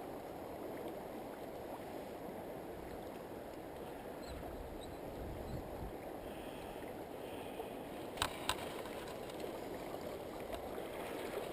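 Steady rush of moving water, with two sharp clicks about eight seconds in.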